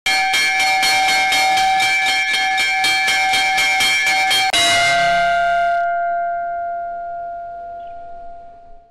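A small hanging brass bell rung fast and steadily, about four strikes a second. About halfway through it is struck once more and left to ring, fading away slowly.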